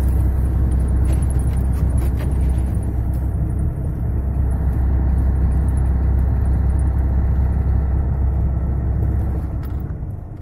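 Semi-truck driving on a snow-covered road, heard from inside the cab: a steady low engine drone with road and tyre rumble, fading out near the end.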